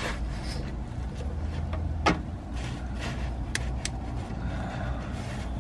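Small clicks and handling noise from a wiring plug being fitted onto a diesel heater's fuel pump, with one sharp click about two seconds in and two fainter ones later, over a steady low rumble.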